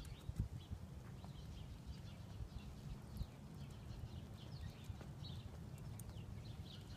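Low rumble of wind on the phone's microphone, with footsteps on asphalt and small birds chirping now and then.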